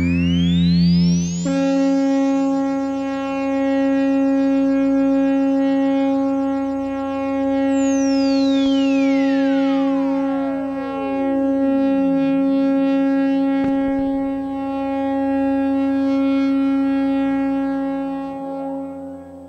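Modular synthesizer playing a generative Krell patch: a sustained drone of several held tones. A tone sweeps up right at the start and another glides down over about four seconds midway. A single click comes a little later, and the drone shifts about a second before the end.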